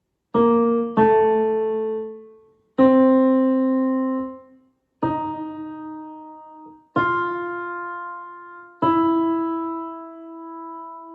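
Piano playing the tenor 1 line of a choral piece one note at a time: six struck notes, each left to ring and fade, the last held longest.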